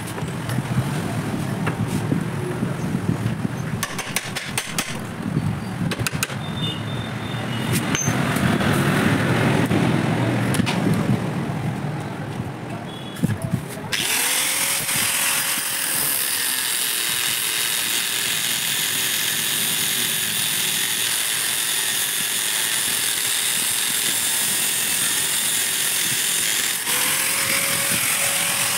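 Angle grinder with a cutting disc cutting through a motorcycle's steel centre stand. The first half is a grinding noise broken by clatter and knocks. About halfway it switches abruptly to a steady, harsh hiss of the disc biting the metal.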